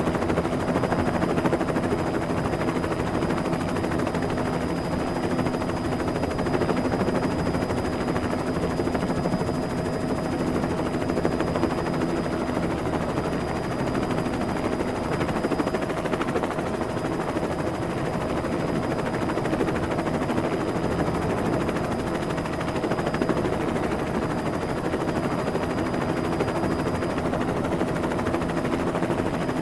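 Helicopter sound effect: rotor blades chopping rapidly and steadily over a constant engine tone.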